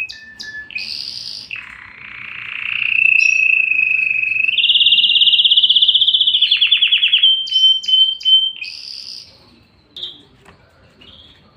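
Domestic canary singing: a loud song of held whistled notes and fast rattling trills (rolls), fading after about nine seconds into a few faint chirps.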